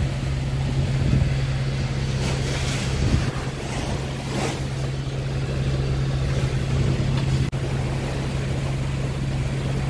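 A sailboat's inboard engine drones steadily as the boat motors through rough swell, with wind and rushing water along the hull and a couple of louder wave splashes a few seconds in.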